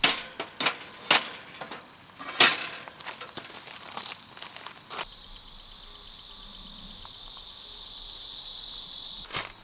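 Summer insects buzzing steadily at a high pitch, with several sharp clicks in the first half. About halfway, a second, lower insect buzz comes in, grows slowly louder and stops suddenly near the end.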